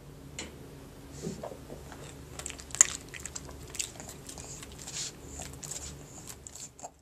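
A flat-faced pug chewing and smacking wetly, with irregular sharp mouth clicks, the loudest about three seconds in. The pug is regurgitating food after eating, a problem of its extreme brachycephalic build.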